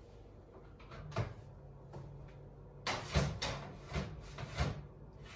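Metal baking tray knocking and scraping against the oven as it is pushed in: one knock about a second in, then a run of clatters between about three and five seconds in, as the tray proves too big for the oven.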